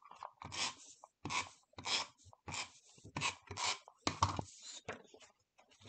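Handheld tape runner being drawn across paper in a run of short strokes, about seven, roughly one every two-thirds of a second, laying adhesive on cut paper pieces.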